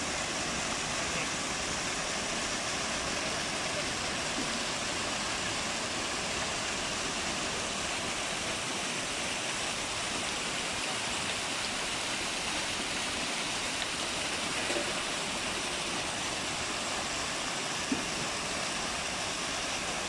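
Water from a row of fountain jets splashing steadily into a shallow pool, a constant even rush of water.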